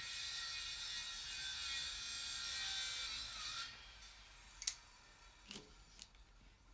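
Metal scraping as a cylindrical end piece is twisted and drawn out of a motorcycle's exhaust tip, running steadily for about three and a half seconds, followed by a few short clinks as metal parts are set down.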